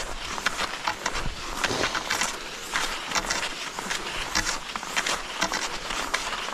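Cross-country skis swishing and scraping along groomed classic tracks, with poles planting in the snow: a rhythmic crunching, about two strokes a second.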